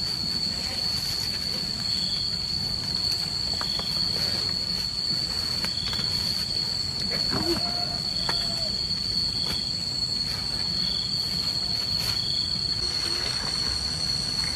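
Insects droning in one steady, unbroken high-pitched buzz, with short faint chirps repeating every second or two.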